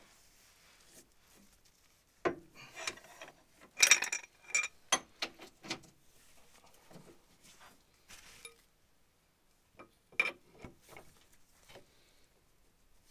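Metal socket tools clinking and knocking against a bolt and each other as a socket and extension bar are fitted and worked under the car. The sharp clinks come in irregular clusters, the loudest about four seconds in, with a few more near the end.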